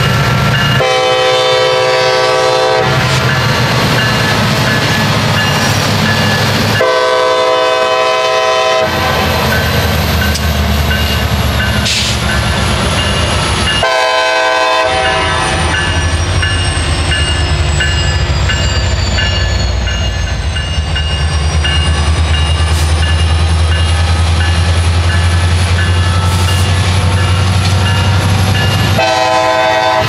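CSX diesel locomotive air horn blowing the grade-crossing signal: two long blasts, one short one, then a last long blast starting near the end. Under it the crossing signal bell rings, and the locomotives' diesel engines rumble louder as they pull close, from about halfway in.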